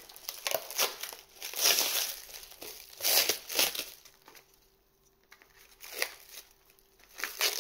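Packaging being torn open and crumpled by hand, in irregular bursts of crinkling and tearing, with a quiet stretch past the middle and a few short rustles and clicks near the end. The package is tightly packed.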